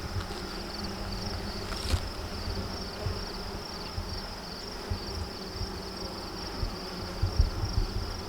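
Honeybees buzzing around an open hive in a steady hum, over a continuous high-pitched trilling. Low bumps and a sharp click about two seconds in come from the frames being handled.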